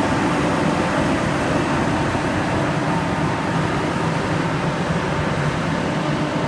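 Diesel engines of heavy equipment, a John Deere 450K crawler dozer and a mini excavator, running steadily with a dense low rumble.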